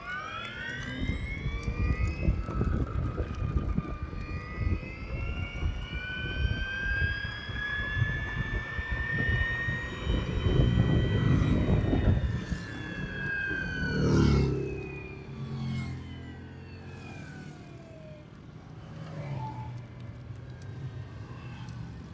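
Piaggio Vespa Elettrica electric scooter's motor whining under way, its pitch climbing for about ten seconds as it speeds up, then sliding down as it slows, over a low rumble. There is a loud thump about fourteen seconds in.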